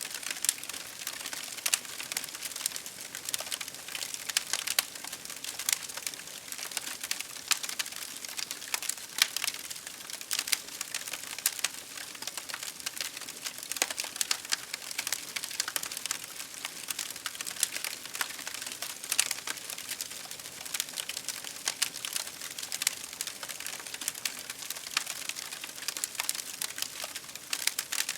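Campfire crackling: irregular sharp snaps and pops, many a second, over a steady hiss of rain.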